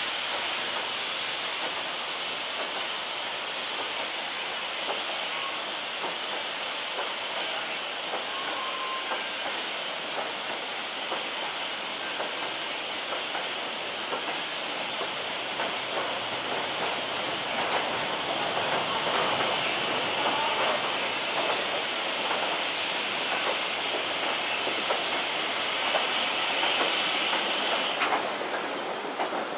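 A steam-hauled goods train's wagons rolling past close by, their wheels clicking over the rail joints, under a steady hiss of steam that cuts off near the end.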